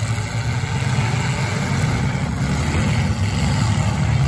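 Engines of several demolition derby cars running hard together, a steady, loud mix of engine noise that grows a little louder near the end.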